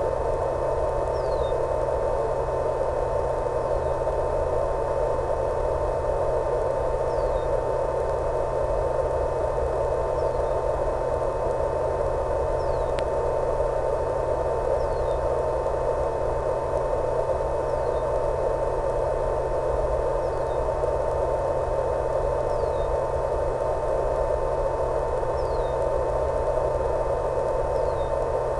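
Steady radio static: an even hiss with a constant mid-pitched tone and a low hum, and faint short falling chirps about every two seconds.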